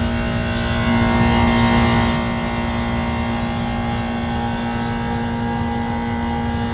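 Refrigeration condensing unit running: a steady motor hum with a strong low tone, a little louder for about a second near the start.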